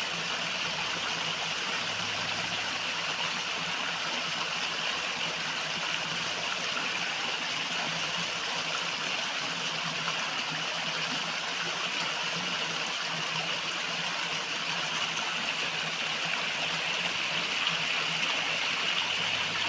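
River water flowing in a steady, even rush with no breaks.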